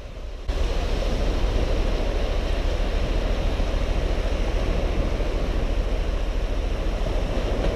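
Small surf washing onto the beach, mixed with a steady low rumble of wind on the microphone; it comes in suddenly about half a second in.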